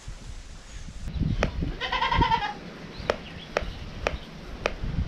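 A goat bleats once, a quavering call just under a second long, about two seconds in. Then a knife cuts through bananas onto a plastic chopping board, about two sharp taps a second.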